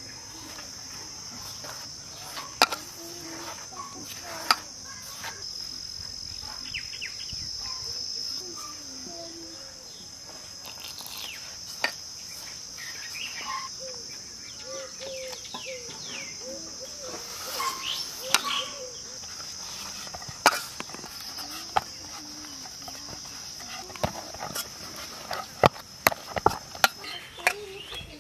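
Flour and oil being mixed and kneaded into puri dough by hand in an aluminium bowl, with scattered sharp clicks and taps against the metal that come quicker near the end. Under it runs a steady high-pitched insect drone.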